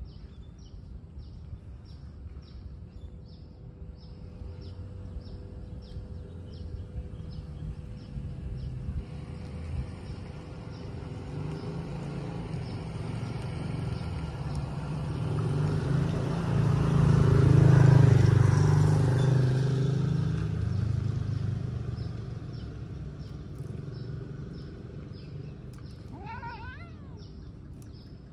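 A vehicle passes, swelling slowly to a peak and fading away over about fifteen seconds, over a steady fast high ticking. Near the end comes one short meow that rises and falls.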